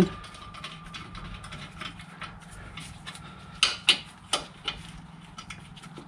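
Brake caliper guide pin bolt being wound in with an Allen key: a run of small metallic clicks and light taps, with a few sharper clicks a little past halfway.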